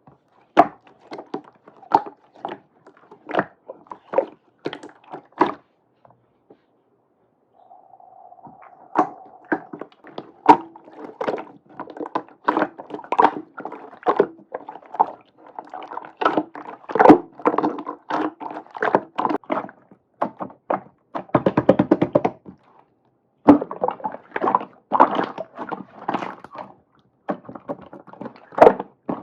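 Slime being squeezed and pressed by hand, making a run of sticky clicks and pops, with a pause of about a second and a half near the quarter mark.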